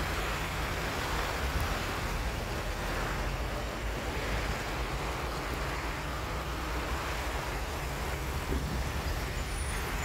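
Steady road traffic: cars, vans and trucks driving past on a snowy road, their tyre noise swelling and fading as each vehicle goes by over a continuous low rumble.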